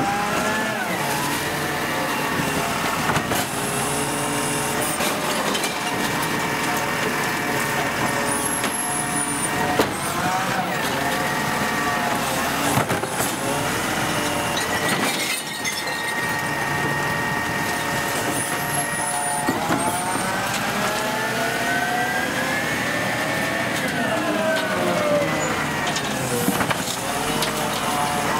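A Volvo FL250 side-loader garbage truck's diesel engine revving up and settling several times as its hydraulic arm lifts a wheelie bin and tips it into the hopper. The revving gives a rising and falling whine, with knocks as the bin is handled and emptied.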